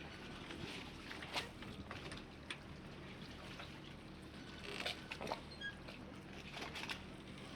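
Harbour ambience: water lapping and trickling against boats and the quayside in irregular small splashes and knocks, over a steady low machine hum.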